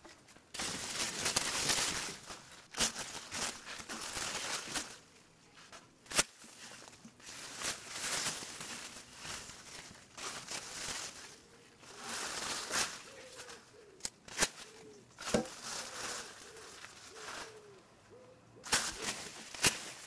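Bushes and weeds rustling in irregular swells that rise and fall, with a few sharp twig-like snaps. A few faint low hooting calls come through in the second half.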